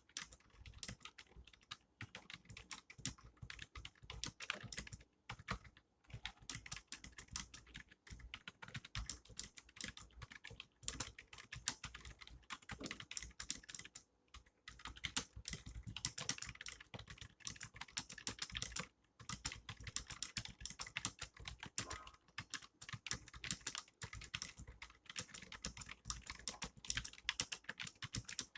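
Fast, continuous typing on a Logitech K230 wireless membrane keyboard: a rapid run of light key clicks with short pauses now and then.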